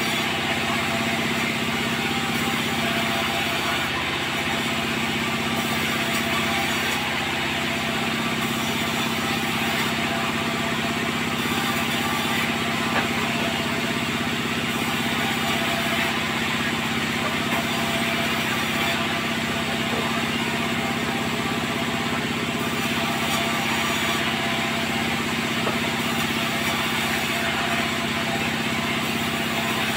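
Sawmill machinery running steadily: an unchanging engine-like drone with a low hum.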